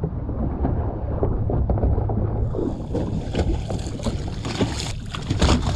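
Fishing boat under way at trolling speed: steady motor hum and rumble with wind buffeting the microphone. About two and a half seconds in, a hiss of water rushing along the hull comes up.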